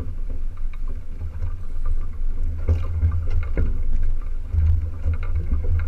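Wind buffeting the camera microphone on a small sailboat under way, a gusting low rumble, with water splashing at the hull and a few sharp knocks, the clearest near the middle.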